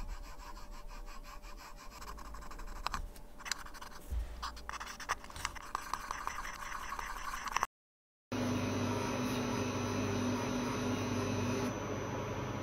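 Cotton swab scratching and rubbing on a watch's date ring, a faint run of small irregular scratchy ticks. About eight seconds in this gives way to the steady electric hum of a polishing machine's motor.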